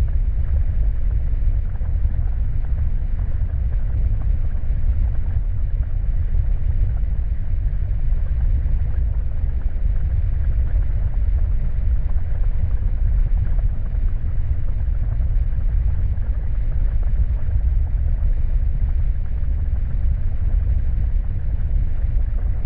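Steady, low rumbling drone of a creepy horror-style sound effect, an even noise with no distinct tones or beats.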